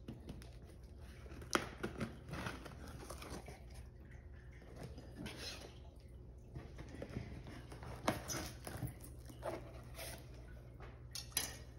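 Cardboard shipping box being opened by hand: a knife slitting packing tape, cardboard flaps scraping and rustling, with scattered short clicks and scrapes.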